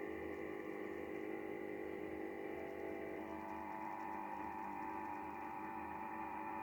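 Icom IC-7300 HF transceiver receiving radio-frequency interference: a hiss cut off above about 3 kHz, with many steady buzzing tones layered in it and a low pulsing hum. About three seconds in the tones shift and a stronger tone comes in. The owner says the noise is not from his own house, since it stays with his electricity off and the radio on battery.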